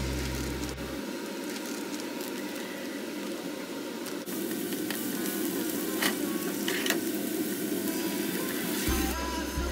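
Diced onions sizzling as they fry in a pan, stirred with a spatula, the sizzle coming in about four seconds in, with a couple of sharp clicks. Background music with a deep bass at the start and near the end.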